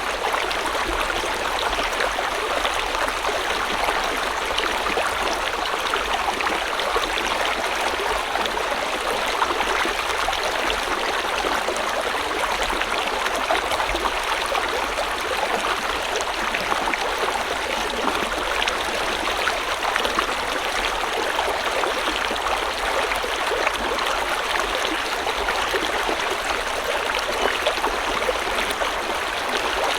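River water flowing steadily over stones, a continuous rushing and babbling with no change in level.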